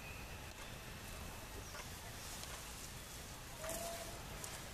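Outdoor background with a few brief high chirps and light clicks, and one short mid-pitched call a little before the end.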